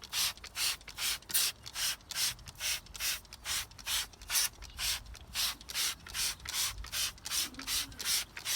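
Trigger spray bottle squirting iron fallout remover onto an alloy wheel, in quick, even, repeated pulls at roughly three squirts a second.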